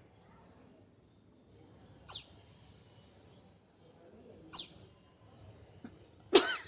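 Two short, high bird chirps that fall in pitch, about two and a half seconds apart, over a faint high steady tone. Near the end comes one loud human cough, the loudest sound here, from a person straining to sneeze who coughs instead.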